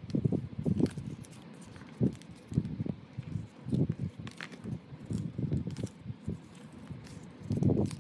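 Paper cards and inserts being handled and shuffled out of a cardboard box, with irregular soft taps and rustles.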